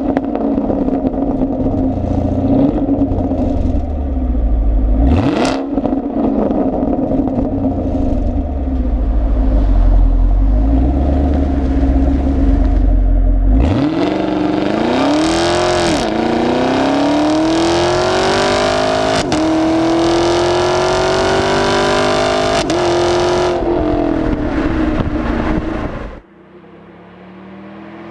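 Chevrolet Camaro SS's 6.2-litre LT1 V8 running at low revs with a deep rumble and a quick throttle blip. It then accelerates hard, its pitch climbing and dropping back several times as the eight-speed automatic shifts up. The sound drops off suddenly near the end.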